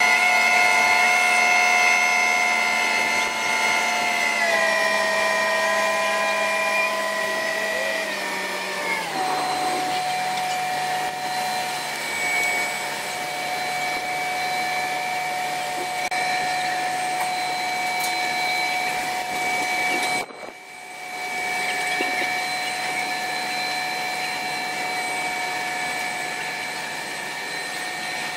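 Sped-up sound of a mobile crane's engine running under load, heard as a steady high mechanical whine. Its pitch drops in steps about 4 and 9 seconds in, and it cuts out briefly about 20 seconds in.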